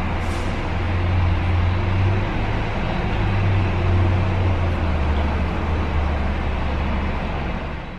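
Steady low hum of a stationary car at idle, heard from inside the cabin, under a broad even wash of traffic noise.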